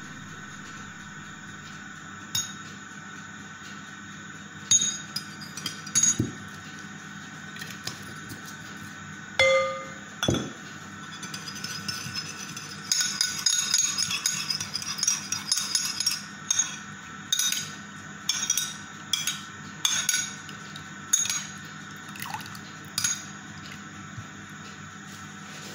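Metal spoon clinking against a ceramic bowl while oil is stirred in it: a few separate taps, one with a short ring, then a quick run of rapid clinks as it is whisked, then single taps about once a second.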